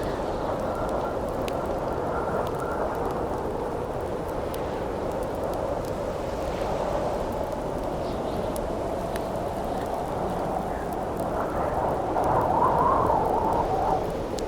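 Howling wind, a steady moaning band, with a louder gust rising in pitch about twelve seconds in, over the scattered pops and snaps of a crackling campfire.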